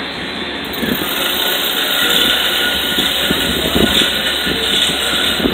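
Steady, loud industrial machinery noise: an even mechanical drone with hiss and no distinct knocks or changes.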